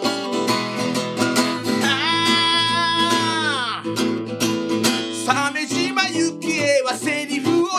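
Acoustic guitar strummed in chords with a voice singing along; one long held note slides down about four seconds in.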